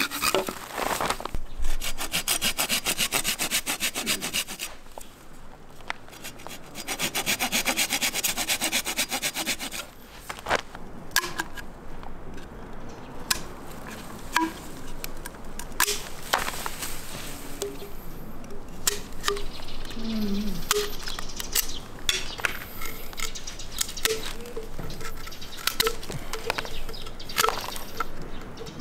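Handsaw cutting through a green bamboo pole in two spells of quick, even strokes, then scattered clicks and snips of pruning shears trimming bamboo and its leafy branches.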